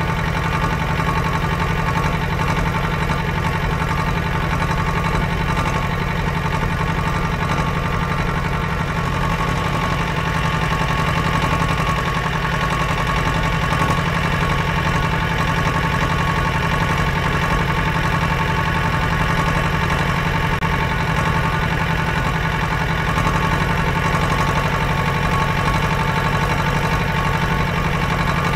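An engine running steadily at constant speed, a drone that holds the same pitch and level throughout.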